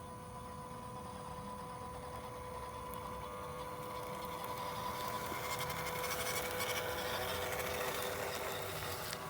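Small electric motor and gearbox of an MN78 1/12-scale RC truck running, with a steady whine. The sound grows louder and more rattly over the second half.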